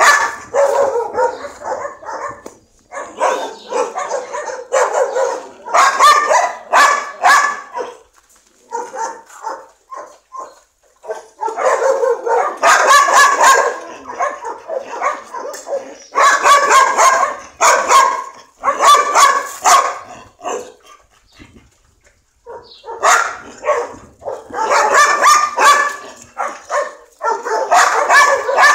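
Dogs barking in bouts of quick, repeated barks, with two short lulls between the bouts.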